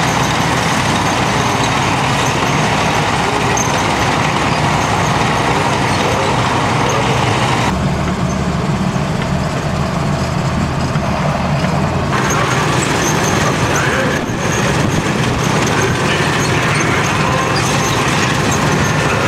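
Engines of a column of military vehicles driving in parade, a steady low drone with road noise. The sound shifts about eight seconds in and again about four seconds later.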